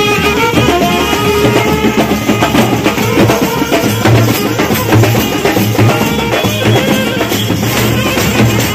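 Indian folk-style music with steady drumming under a melody line.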